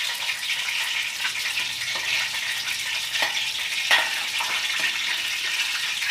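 Battered fish frying in hot oil, a steady sizzle with a few sharp crackles and pops scattered through it.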